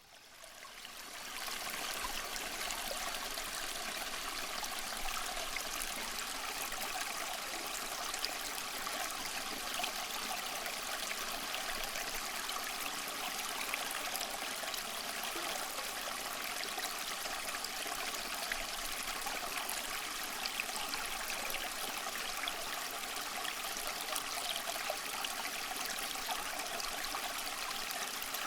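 Stream water running and trickling, a steady rush with small splashy crackles, fading in over the first two seconds.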